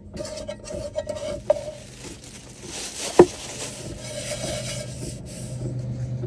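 Paper towel rubbing and scrubbing around the inside of an empty metal pot, wiping it clean, with a few small clicks and one sharp clink of the pot about three seconds in.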